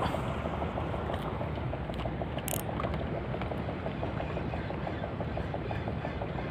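A motor engine running steadily, a low drone with an even chugging beat several times a second, with wind on the microphone.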